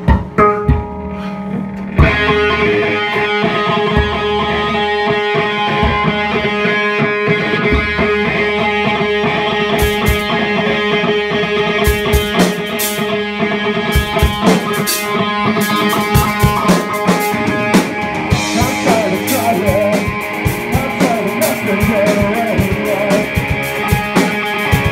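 Rock band playing live on electric guitars through amplifiers, bass guitar and drum kit. A brief, sparser guitar opening gives way about two seconds in to the full band playing loud, with cymbal crashes through the rest of the song.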